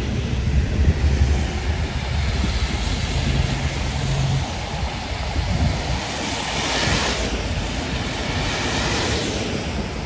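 Steady traffic on a multi-lane road in falling snow: cars driving past with their tyres hissing on the wet, slushy pavement. Two louder passes swell up about seven and nine seconds in.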